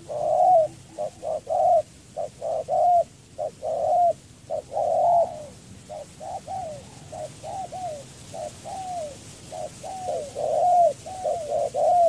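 Spotted dove (Spilopelia chinensis) cooing: a long run of short, arching coo notes, about two a second, louder in the first few seconds and again near the end.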